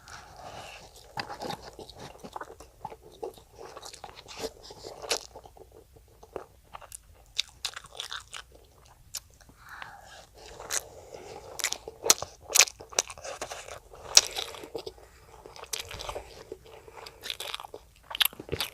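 Close-miked eating sounds of a child chewing and biting food, with many sharp wet clicks and smacks in an irregular rhythm.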